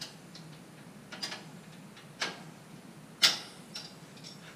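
Hand tools clinking against the metal of a Brunswick A2 pinsetter while it is worked on with the power off: five or six sharp separate clicks, the loudest a little over three seconds in.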